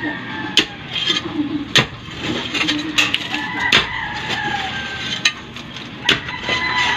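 A long metal digging blade chopping into stony soil and roots at the base of a moringa stump, about six sharp strikes at an uneven pace, roughly one a second, as the stump is dug out for uprooting.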